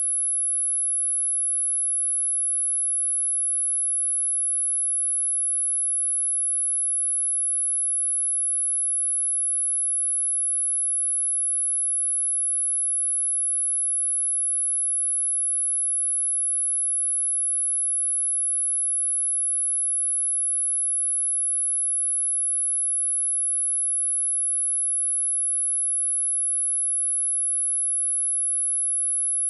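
A steady, unbroken high-pitched sine tone at 10951 Hz, a single pure test tone used to check speakers and to shake water and dust out of them.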